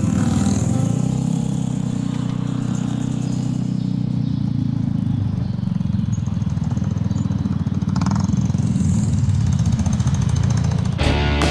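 Vespa scooter engine running steadily while riding along, heard from a camera on the scooter, with road and wind noise. Music cuts in right at the end.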